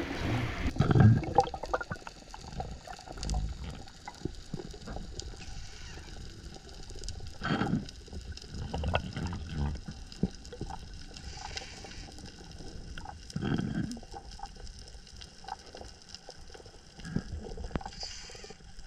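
Muffled sea water sloshing and gurgling around a diver's camera, with irregular low splashes and a few louder gurgles about seven and thirteen seconds in.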